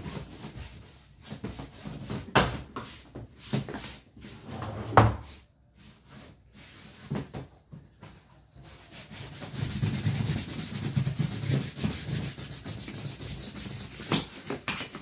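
Fabric trolley suitcases being handled, with scattered knocks and thumps, the loudest about five seconds in. From about nine seconds in, the suitcase's fabric is rubbed and scrubbed by hand in quick, steady strokes as it is cleaned.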